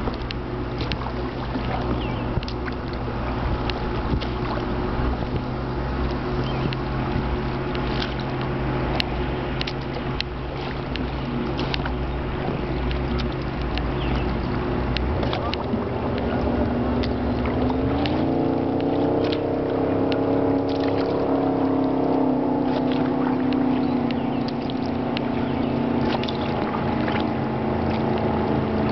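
A boat engine running steadily under water splashing and small knocks against the hull. About 17 seconds in, the engine's pitch rises and then holds higher.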